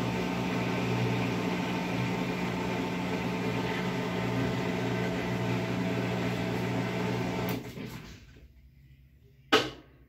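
Top-load washing machine's drain pump running with a steady hum, which stops about three quarters of the way through. About two seconds later there is a single sharp clunk from the shift actuator, switching the drive from the agitator to the tub for the spin, as part of the machine's automatic test mode.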